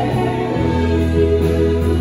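Live worship band music: a soft instrumental passage of held chords, with a low bass note coming in about half a second in.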